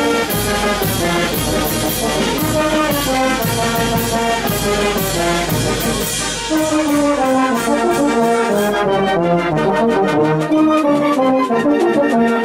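Oaxacan banda filarmónica, a brass wind band, playing a melody in several parts over a steady percussion beat.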